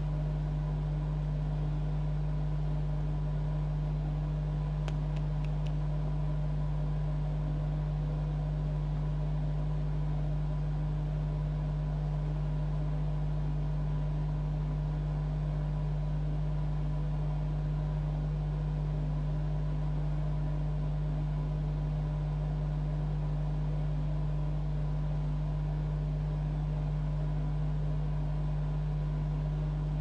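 A steady low hum that holds the same pitch and level throughout, with no other sound over it.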